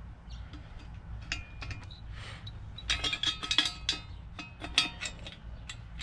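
Light metallic clinks and taps as an exhaust pipe and its fittings are handled and set into place on a mini bike's exhaust port. They come in irregular clusters of sharp, briefly ringing clinks, busiest about three to four seconds in.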